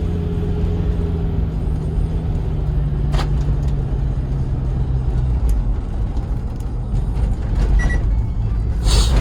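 Hyundai Terracan SUV on a test drive: steady low engine and road rumble, with the engine tone dropping away about five seconds in. There are a few light clicks and a short sharp noise burst near the end.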